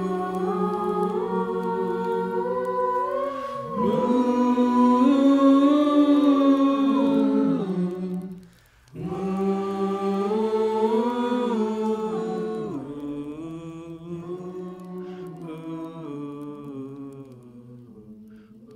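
Voices singing a slow hymn without accompaniment, in long held notes. There is a brief break for breath partway through, and the singing then fades away gradually over the last few seconds.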